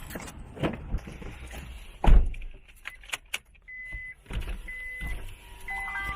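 A car door shuts with a heavy thump about two seconds in, followed by a few clicks. Then a car's electronic beep starts repeating about once a second.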